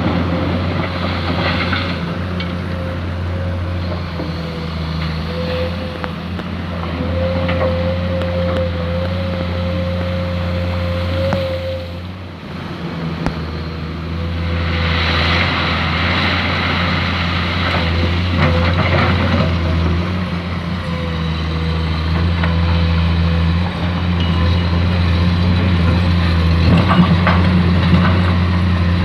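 Diesel excavator running under load while digging sand: a steady low engine hum with a thin whine above it. The engine eases off briefly a little under halfway through, then works harder and rougher, with a few clanks.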